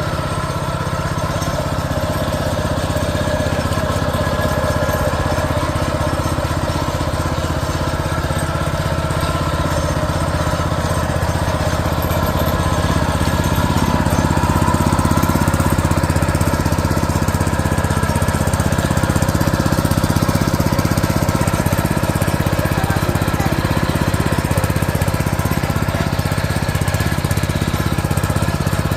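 The engine of a 7 hp Kaan 230 motor hoe (rotary tiller) running steadily, getting a little louder from about halfway through.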